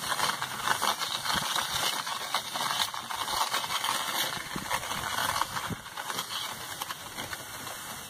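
Wet cement mortar scraping against a hand-held profile template as the pot spins on its rotating base, a continuous gritty rasp with rattling from the turning base. It tapers off near the end as the spinning stops.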